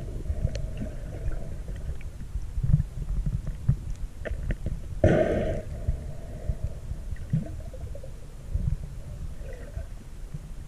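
Muffled underwater rumbling and gurgling of water moving around a submerged camera, with scattered small clicks and one louder gurgling rush about five seconds in.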